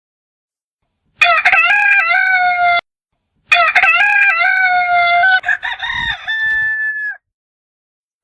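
A rooster crowing twice, the second crow longer than the first. Each crow cuts in and out abruptly, with dead silence between them.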